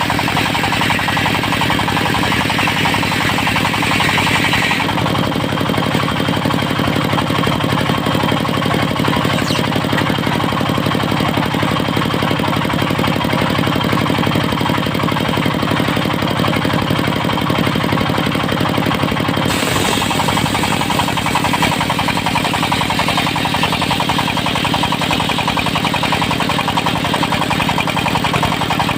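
Diesel engine of a portable circular sawmill running steadily with a knocking beat. A higher hiss over it drops away about five seconds in and comes back about twenty seconds in.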